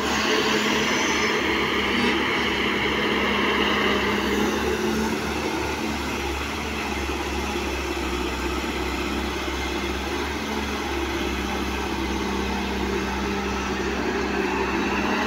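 Diesel engine of a John Deere wheeled excavator running steadily under load as the machine dumps, swings and digs, with a constant low hum. The level eases slightly midway and picks up again near the end.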